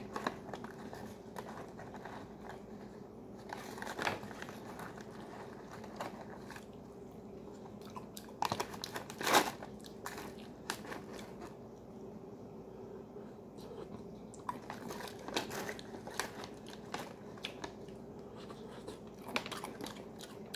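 Someone crunching and chewing peanuts from an MRE trail-mix pouch, with the paper pouch crinkling and a spoon clicking against it. The crunches come scattered and uneven, the loudest about nine seconds in.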